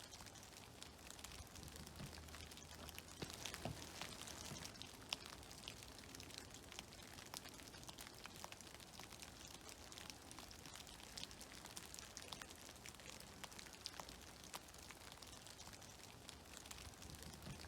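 Faint meltwater dripping and pattering from snow-laden trees: many small, irregular ticks of falling drops over a soft steady hiss.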